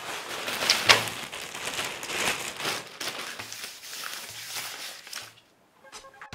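Plastic bag crinkling and paper banknotes rustling as a pile of cash is tipped out and spread by hand, with a loud crackle about a second in; it stops shortly before the end.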